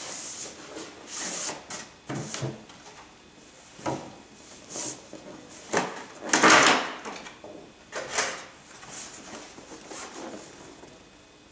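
Hair dryer and its parts being handled, picked up and set down: a string of short rustles, clicks and knocks, the loudest a thump about six and a half seconds in.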